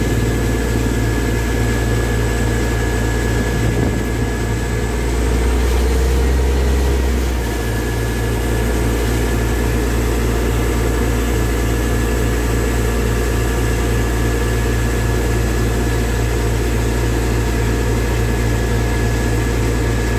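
Tractor engine running steadily to drive a borewell drilling rig, a deep, even hum; the low rumble swells for about two seconds around five seconds in.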